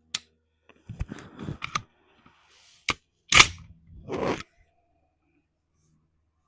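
A few sharp clicks and rifle-handling noises, then a single shot from an AR-15-style rifle in .223 about three and a half seconds in, followed by a second, duller burst just under a second later. It is the first sighting shot of a zeroing session.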